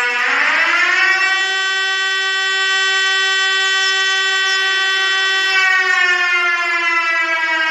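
Siren-like alarm tone of a mock Emergency Alert System alarm. It is buzzy with many overtones: it rises in pitch during the first second, holds steady, then slides slowly back down from about five and a half seconds in.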